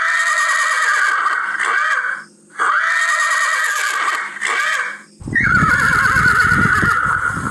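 Horse whinnying: three long neighs in a row, the last falling in pitch over a low rumble.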